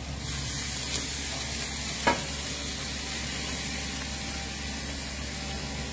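Food sizzling steadily on a hot cooking surface, an even frying hiss. A light click comes about a second in and a sharper knock about two seconds in.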